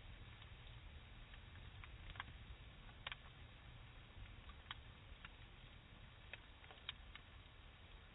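Faint campfire crackling: scattered, irregular sharp pops over a low rumble.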